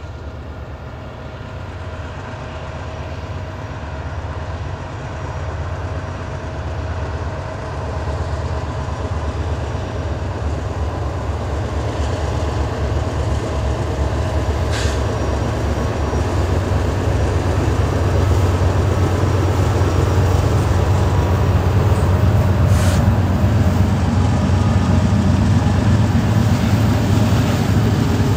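Norfolk Southern diesel freight locomotives, a GE Dash 9-44CW leading an EMD SD60E, working under power as the train gets moving again, a deep engine drone that grows steadily louder as they draw near.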